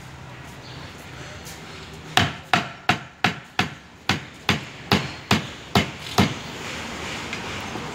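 A knife chopping on a wooden board: about eleven sharp, even strokes, a little over two a second, starting about two seconds in and stopping about six seconds in.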